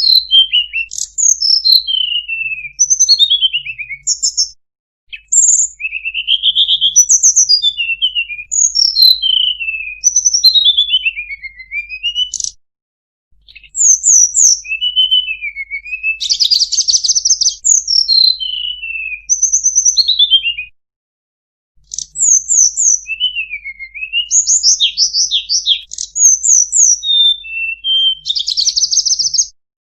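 Tledekan gunung (Sunda robin) singing a varied song: clear whistled notes, mostly sliding down in pitch, mixed with short fast trills. The song comes in stretches of several seconds broken by brief silences.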